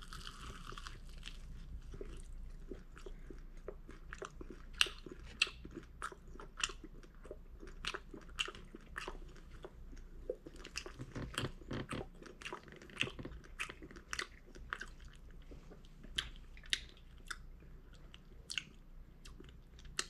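A person biting into and chewing a Korean fried chicken drumstick close to the microphone: irregular crunches and wet mouth clicks.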